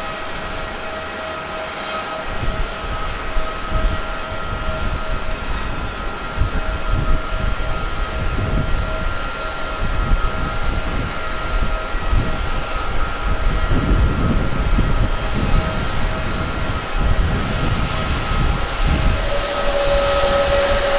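Airbus A350-900's Rolls-Royce Trent XWB jet engines at taxi idle: a steady whine of several held tones over an uneven low rumble that grows louder. Near the end a new, lower steady tone comes in.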